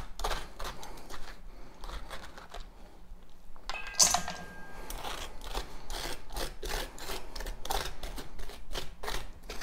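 Spoon scraping seeds and stringy pulp from the inside of a halved pumpkin, in quick repeated scrapes. About four seconds in, the spoon knocks against a stainless steel bowl, which rings briefly.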